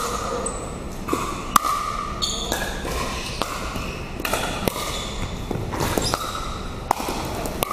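A handful of sharp, irregular knocks ringing in a gymnasium, the loudest about a second and a half in: a plastic pickleball bounced on the hardwood court between points.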